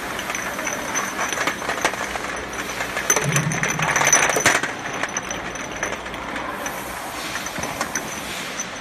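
Bottle-labeling line running: amber glass bottles clink against one another and the guides as the conveyor carries them along, over a steady machine hum with a faint high whine. The noise swells for a second or so around the middle.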